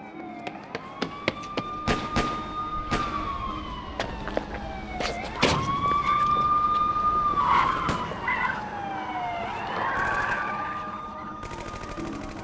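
Siren wailing: each cycle sweeps quickly up, holds a high steady tone, then slides slowly down, repeating about every four and a half seconds. A few sharp clicks sound over it.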